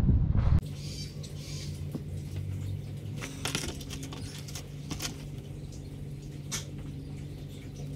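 Knife cutting and scraping queenfish fillets on a plastic cooler lid: scattered small scrapes and clicks, a few louder ones, over a steady low hum.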